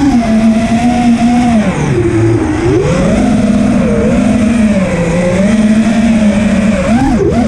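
FPV racing quadcopter's electric motors and props whining loudly, recorded on the drone itself, the pitch rising and falling with the throttle as it flies. The pitch drops low around two seconds in and dips and swings sharply near the end.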